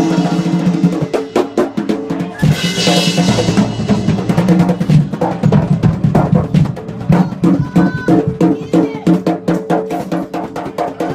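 Live drum kit solo: fast rolls across ringing toms and snare, driven by bass drum, with a cymbal crash about two and a half seconds in.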